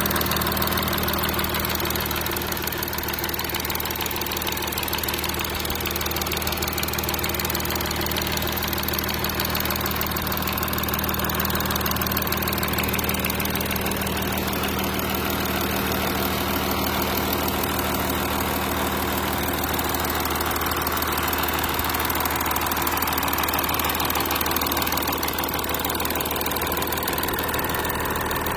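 An engine running steadily with an even hum that does not change in pitch or level.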